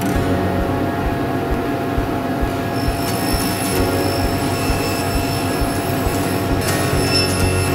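A power tool running with a steady whine, joined about three seconds in by higher squealing tones.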